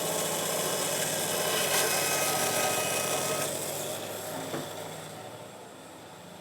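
Power saw cutting wood, a steady whirring rasp. About three and a half seconds in, the cutting ends and the sound dies away gradually over the next two seconds.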